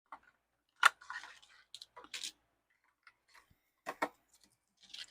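A small cardboard merch box being opened by hand and its contents handled: a sharp click about a second in, brief rustles of packaging, and two clicks close together near four seconds.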